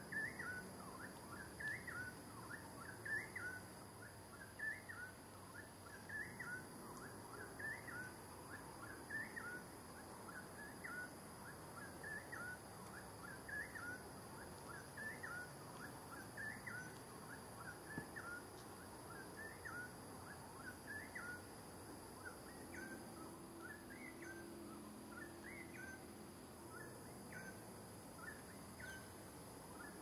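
Rapid series of short, high chirping animal calls, several a second, growing fainter toward the end, over a faint steady high hiss.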